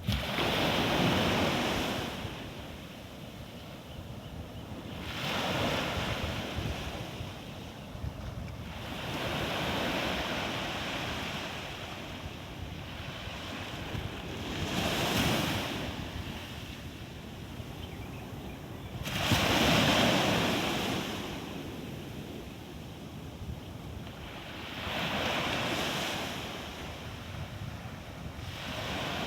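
Sea waves breaking and washing up, a rushing surge about every five seconds that swells and fades away, six in all, the loudest about two-thirds of the way through.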